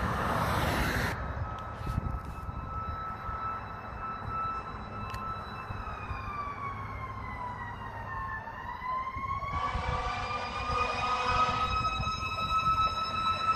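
Fire engine siren approaching from a distance: a steady wail that slowly falls in pitch and climbs back up. For about two seconds, about ten seconds in, a second, fuller tone is laid over it. A passing car rushes by in the first second.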